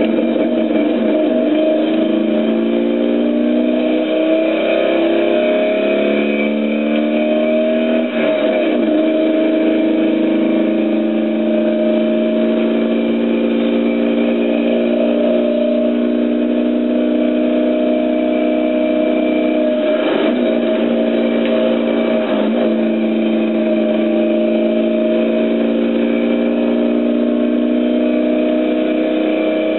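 Car engine heard from inside the cabin under hard acceleration, its note rising over the first several seconds. There are short breaks in the note about eight seconds in and twice around twenty seconds in, gear changes, with steady high revs between.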